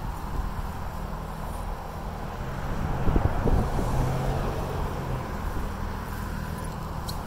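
Jaguar F-Type engine idling with a steady low hum, swelling a little louder about three seconds in.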